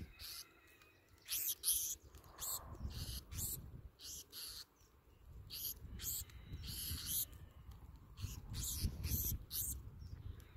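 Black-throated sparrows giving short, high-pitched chip calls, many separate notes at an irregular pace, over a low rumble.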